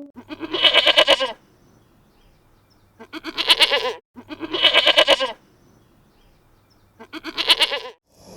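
An animal bleating: four wavering bleats, each about a second long, the second and third nearly back to back.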